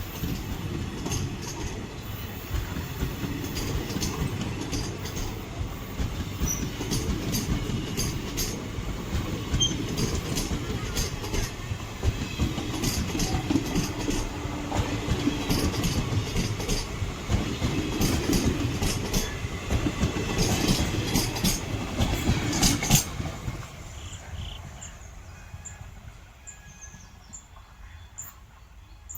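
A train running past close by on a curve: a steady rumble of wheels with rapid clicking and clacking over rail joints and a few brief high squeaks. About 23 seconds in, the sound drops and fades away as the train passes.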